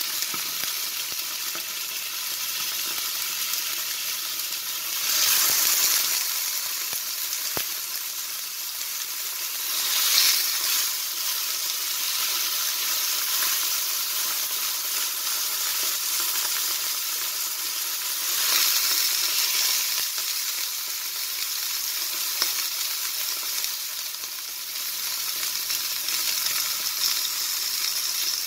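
Sirloin steak searing in a hot oiled frying pan: a steady high-pitched sizzle that swells louder three times, about five, ten and nineteen seconds in.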